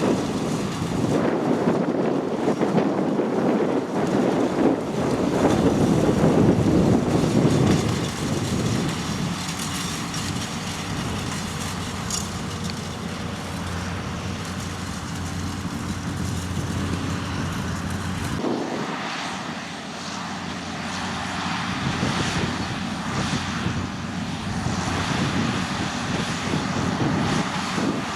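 Farm tractor engine running steadily while working a field, with rough rumbling noise for the first eight seconds, then a steadier hum that shifts about eighteen seconds in.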